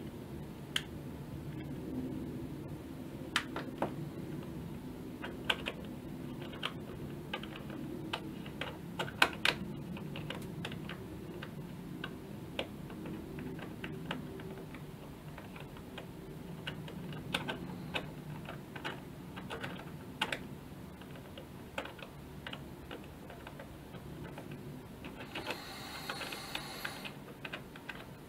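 Small irregular metal clicks and ticks from fingers turning and seating a threaded ring on a Carl Zeiss Jena Tessar camera lens, over a steady low hum. A brief hiss near the end.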